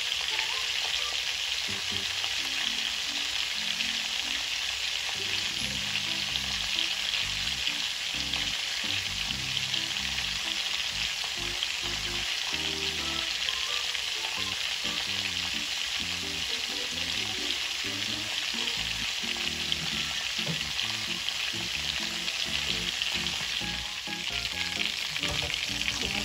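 Chicken pieces shallow-frying in oil in a metal frying pan: a steady, even sizzle.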